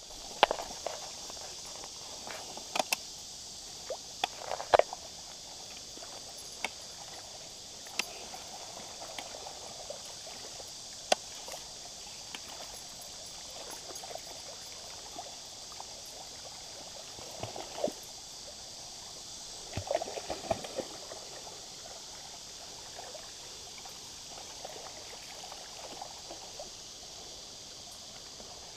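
Shallow river water flowing steadily over a rock bed. Now and then come splashes and knocks from wading in the shallows, with a cluster of splashing about twenty seconds in.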